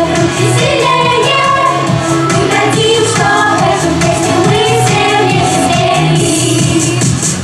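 Vocal pop ensemble singing a New Year song over instrumental pop accompaniment with a steady beat.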